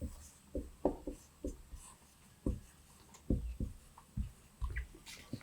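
Writing by hand: a faint series of short, irregular taps and strokes of a pen on a surface.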